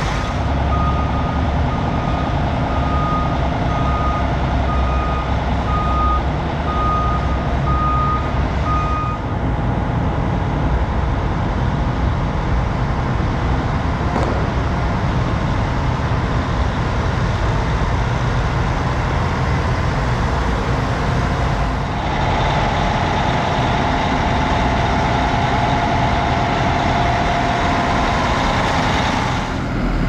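Diesel engines of large Versatile farm tractors running as the machines are moved, with a backup alarm beeping steadily, about one beep a second, for the first nine seconds or so. The engine sound changes abruptly about nine seconds in and again about twenty-two seconds in.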